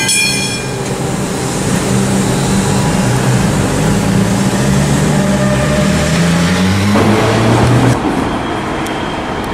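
The level crossing's original Westinghouse bells ring in a fast, even rhythm and stop under a second in. An electric suburban train then rumbles past, its low motor hum falling slowly in pitch and fading near the end.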